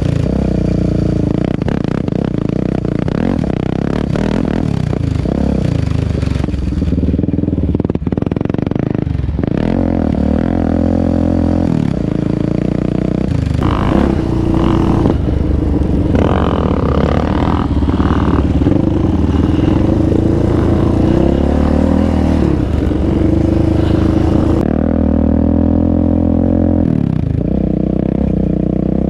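Off-road engines of a sport quad and dirt bikes running continuously on a dirt trail, revving up and down with the throttle as they ride.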